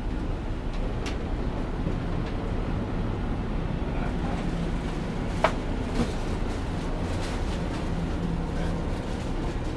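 Streetcar's nose-suspended traction motors humming with a low rumble as it pulls away along the track, with two sharp clicks from the wheels over rail joints or points about halfway through.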